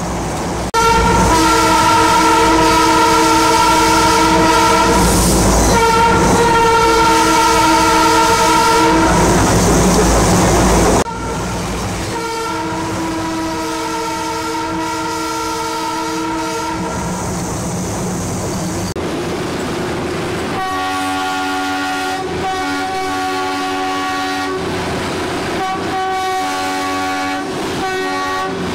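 Darjeeling Himalayan Railway train horn: one long, steady, chord-like blast lasting about ten seconds over the low rumble of the train. After it come quieter held horn notes, and in the last several seconds a run of short repeated toots.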